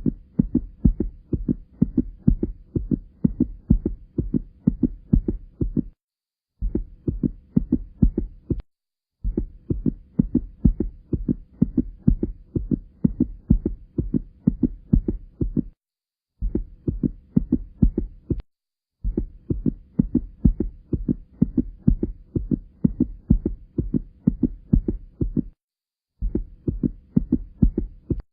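Human heartbeat, a steady run of low lub-dub thumps, cut by several brief silent gaps.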